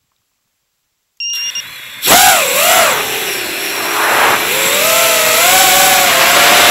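Racing quadcopter's brushless motors and propellers, heard from the onboard camera: a brief steady high tone just over a second in, then the motors spin up about two seconds in to a loud whine that rises and falls with the throttle, over a growing rush of prop wash and wind.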